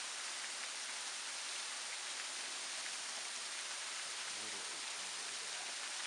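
White Oak Sink Falls, a thin waterfall spattering down tiers of rock ledges: a steady, bright hiss of falling and splashing water.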